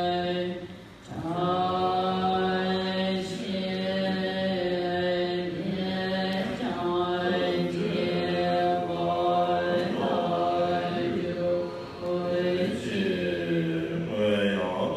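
Tibetan Buddhist liturgical chanting of a long-life puja: voices hold a low, steady pitch with occasional melodic turns. There is a short break about a second in.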